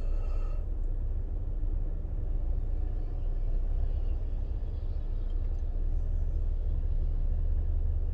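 Car cabin while driving: a steady low rumble of engine and road noise, with the foot holding the accelerator.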